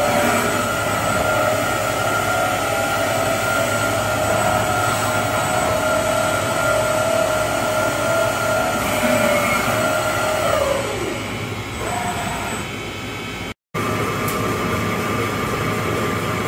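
Walter Helitronic Power CNC grinder running under power: a steady machine noise with a two-tone whine from its motors, which glides down and dies away about eleven seconds in. After a brief break near the end, a steady hum with a faint whistle remains.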